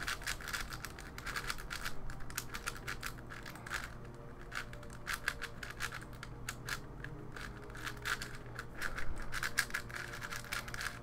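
A magnetic QiYi Wushuang M 5x5 speedcube being turned quickly by hand: a dense, irregular run of small plastic clicks and clacks as its layers turn and snap into place.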